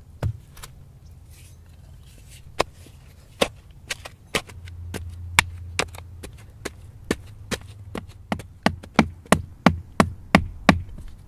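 Sharp knocks of a hand-held tool striking hard, stony red clay to dig it out. They come irregularly at first, then speed up near the end into a steady run of about three a second.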